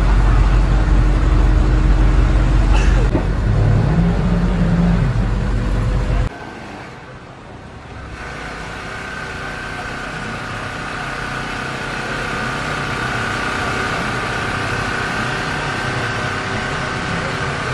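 BMW Alpina B7 Biturbo's twin-turbo V8 exhaust running loud and deep, revved once so that its note rises, holds and falls back. About six seconds in the sound cuts off abruptly. A quieter, steady engine sound with a faint held whine follows and slowly grows louder.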